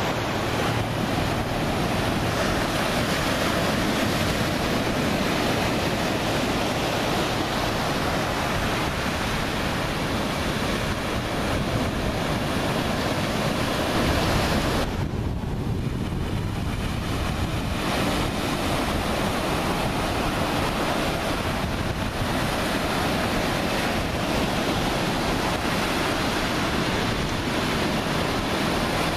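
Ocean surf rushing steadily, with wind buffeting the microphone; the hiss thins for a few seconds about halfway through.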